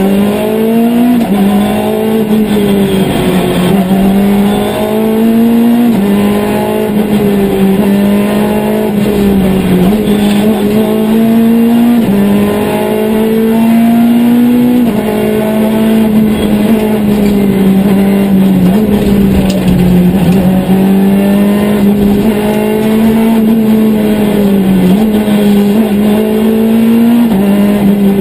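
Citroën C2 R2 Max rally car's four-cylinder engine heard from inside the cabin at full stage pace. The engine is held high in the revs, climbing steadily in each gear and dropping sharply at every quick gear change, many times over.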